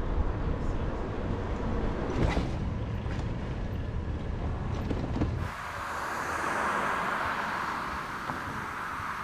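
Outdoor street ambience: a low rumble with a few brief knocks, which cuts off suddenly about five seconds in and gives way to a steady, even hiss.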